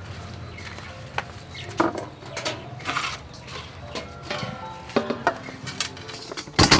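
Irregular knocks and clinks of a woven basket and a metal bowl being moved and set down on a wooden table, some with a brief metallic ring; the loudest clatter comes near the end.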